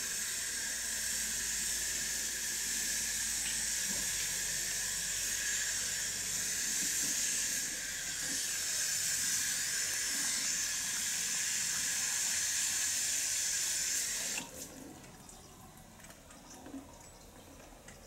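Cicada chorus: a steady, high, buzzing drone that cuts off suddenly about fourteen seconds in.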